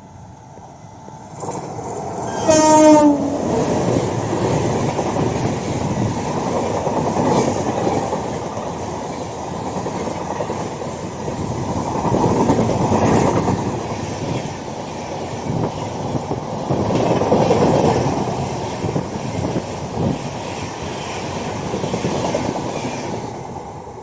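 Indian Railways train sounding its horn once, briefly, about two seconds in, then passing with the clatter of wheels over rail joints. The noise swells and eases as the coaches go by and falls away near the end.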